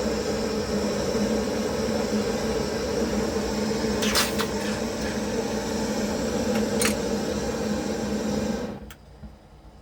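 Brazing torch flame burning with a steady rushing hiss, heating the joint to desolder a filter drier. Two sharp metallic clicks come about four and seven seconds in, and the flame cuts off suddenly near the end.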